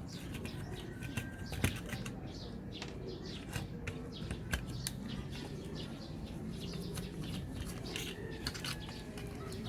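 Irregular small clicks and taps of hands and tools working on electronic equipment, with faint bird chirps in the background.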